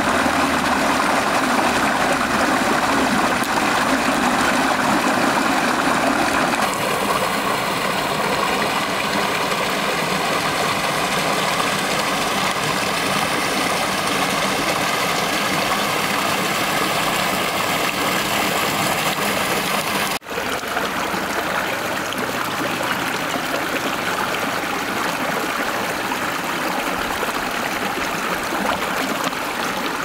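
Mountain stream running over rocks in small cascades: a steady rush and splash of water. The sound of the water changes in tone about a third of the way in and drops out for an instant about two-thirds in.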